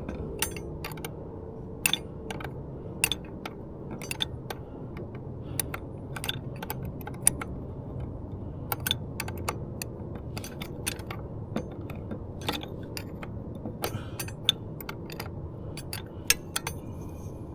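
Irregular metal clicks and clinks of a 10 mm wrench working a nut on an outboard's shift linkage rod, over a steady low hum.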